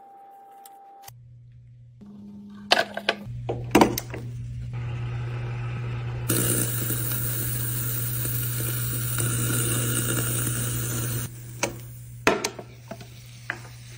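A 1970 electric hot dog cooker passing mains current through hot dogs on its spike electrodes: a steady electrical hum that grows louder, joined about six seconds in by a sizzling hiss, with both cutting off about eleven seconds in. Clicks and clatter from loading the spikes and closing the lid come first, and more clicks follow the cutoff.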